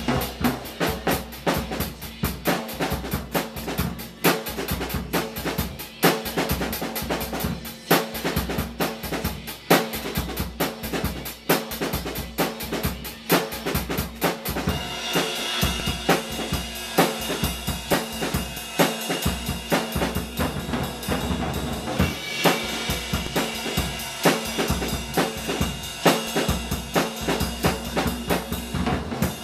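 Drum kit played fast and busily: rapid snare and rimshot strokes over steady bass drum kicks, with the cymbals ringing louder from about halfway.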